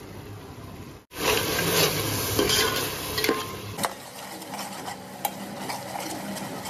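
A metal spatula stirs and scrapes freshly added ground spices into onion masala frying in oil in a metal pot, against a sizzle. The scraping starts loud about a second in, with sharp clicks of the spatula on the pot, then settles into softer stirring.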